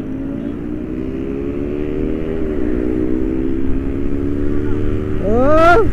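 Motorcycle engine running under way, its pitch slowly climbing, with a short dip in pitch about two and a half seconds in. Near the end comes a loud, quick rev that rises sharply in pitch and then cuts off.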